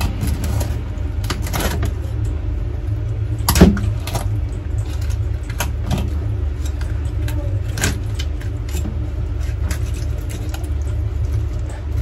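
Kitchen knife cutting and chopping through a large raw fish on a plastic cutting board: scattered knocks and clicks, the loudest about three and a half seconds in, over a steady low rumble.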